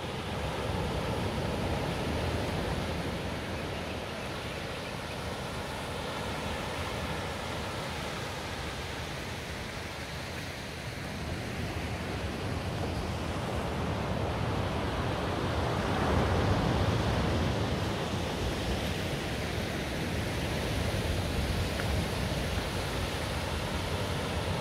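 Sea surf washing over a rocky shore, with wind rumbling on the microphone; it swells louder about two-thirds of the way through.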